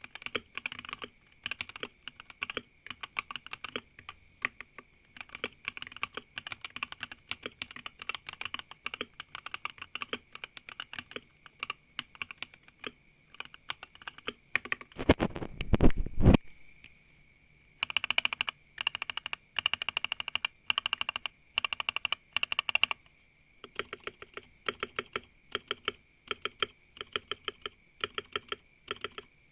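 Typing on a mechanical keyboard with yellow switches, keystrokes clacking in quick irregular runs. About fifteen seconds in comes a louder, deeper rumbling burst lasting just over a second, then a brief pause before the typing resumes.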